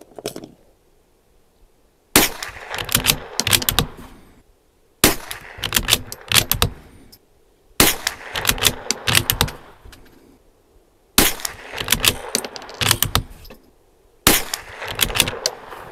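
Five shots from a Bergara B14R .22 LR bolt-action rifle, about three seconds apart, firing old Remington Target 40-grain ammunition at about 1200 feet per second. Each shot is followed by a quick run of clicks as the bolt is worked.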